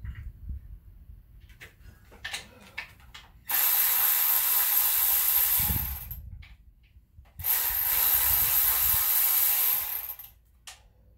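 A power ratchet run in two bursts of about two and a half seconds each, taking bolts off the top of an AMC 4.2-litre inline-six engine. Short metallic clicks of tool work come before and between the runs.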